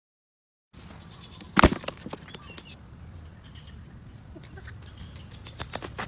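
Silent for just under a second, then outdoor background sound. About a second and a half in there is one sharp, loud knock, followed by scattered light knocks and rustles, a few more just before the end.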